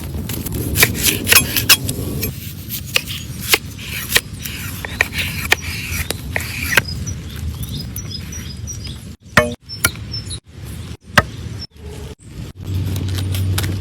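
Irregular sharp clicks and crackles over a low rumble, with birds chirping briefly in the middle; the sound changes abruptly several times.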